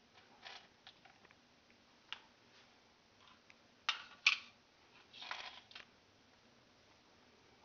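Faint handling noise: scattered sharp clicks and brief rustles as a handheld camera and laser pointers are moved about, the two loudest clicks about four seconds in and a rustle just after five seconds.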